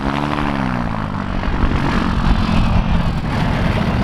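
Piston engine and propeller of a light taildragger bushplane passing close at low level. The engine drone falls in pitch over the first second or two, then holds steady and lower as the plane rolls on the grass.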